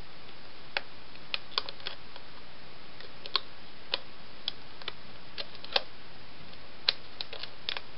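Irregular sharp clicks and crackles of a thin plastic water bottle being cut and handled with a razor blade, over a steady hiss.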